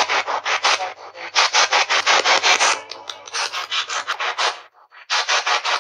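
Spirit box sweep from the GhostTube ghost-hunting app: rapid, choppy bursts of static, about eight a second, with brief breaks about a second in, around three seconds and shortly before the end.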